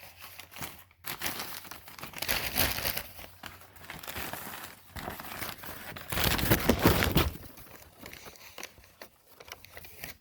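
Newspaper packing paper being crumpled and rustled while it is pulled out of a shipping box, in irregular bursts, loudest about six to seven seconds in.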